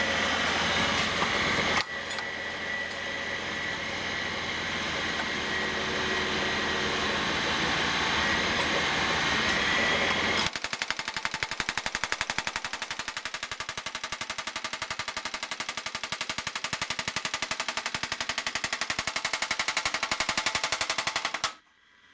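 Bar-repair machine running with a steady motor hum and a thin whine, then about halfway through its power hammer starts a fast, even hammering on the rails of a worn Stihl chainsaw bar, closing up the worn groove to narrow its gauge (.063 toward .050). The hammering stops abruptly near the end.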